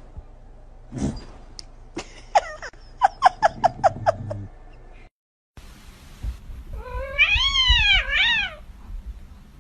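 Cat meowing: a rapid run of short chirping mews, about five a second, then after a brief gap one long drawn-out meow that rises and falls in pitch.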